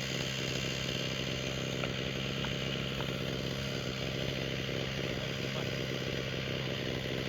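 An engine running steadily at one constant speed, with no revving or change in pitch.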